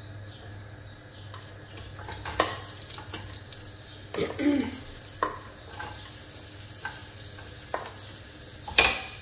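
Chopped red onion sizzling as it goes into hot oil in a metal pot, stirred with a wooden spoon, with scattered clicks and scrapes. The sizzle starts about two seconds in, and a sharp knock comes near the end.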